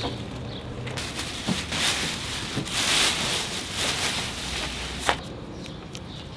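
Large plastic bag rustling and crinkling in uneven swells as it is pulled off a whole pig carcass, with one sharp click about five seconds in.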